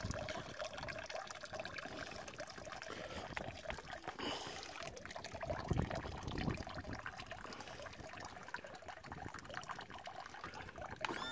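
Water trickling and splashing around an outboard motor's lower unit in the water.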